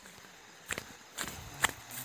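Footsteps crunching through dry leaves and undergrowth: three short crackling steps about half a second apart.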